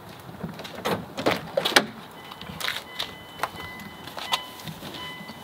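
Clicks and knocks of a car door and interior fittings being handled, with a steady electronic warning tone, like a door-open chime, starting about two seconds in.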